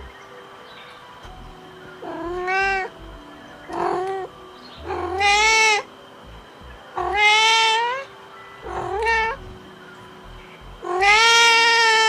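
A cat meowing six times, each meow a drawn-out call with a rising pitch, the last ones longest and loudest.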